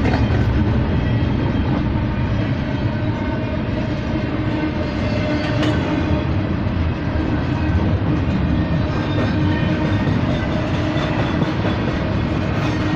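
Norfolk Southern freight train rolling past, a steady rumble and clatter of wheels on rail.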